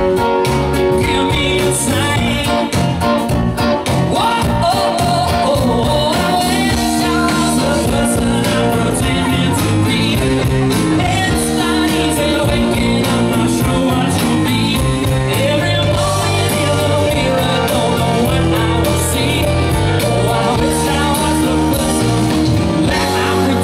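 Live rock band playing a song: electric guitar, bass guitar, drum kit and keyboard, with a male lead vocal singing over them.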